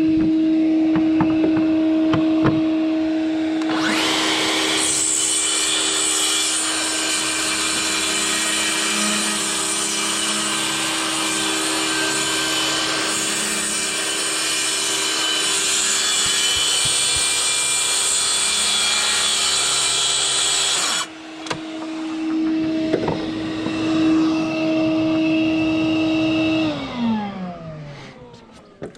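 Track saw running at full speed with a steady whine. About four seconds in it bites into the wooden deck boards and cuts steadily along the track for some seventeen seconds, then comes clear of the wood and runs free. Near the end the trigger is released and the motor winds down.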